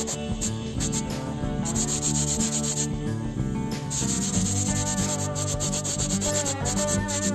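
Sanding: a steady rasping rub of abrasive on a workpiece, with background music underneath.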